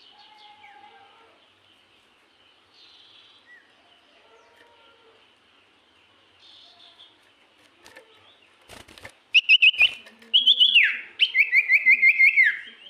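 A serpu songbird singing in full voice. After faint chirps, loud bursts of quick, sharp repeated chirps come in the last few seconds, broken by one whistled note that falls in pitch. A few sharp clicks come just before the loud song.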